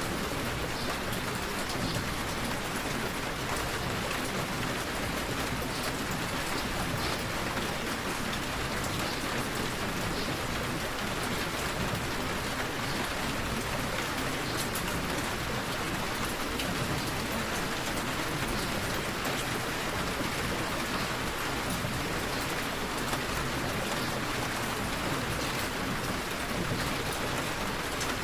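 Steady rain falling, an even hiss with scattered individual drop taps.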